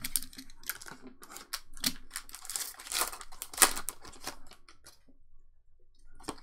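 Foil wrapper of a Pokémon trading-card booster pack crinkling and tearing open by hand as the cards are slid out: a run of sharp crackles and rustles, loudest a little past halfway, that dies away about five seconds in, with one more brief rustle near the end.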